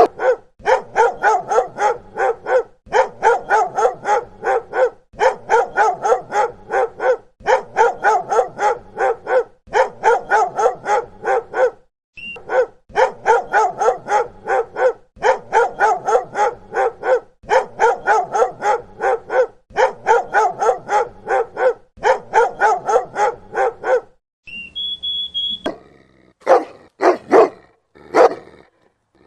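A dog barking in quick runs of several barks, the runs repeating every two seconds or so with short gaps. Near the end comes a brief high whine, then a few single barks.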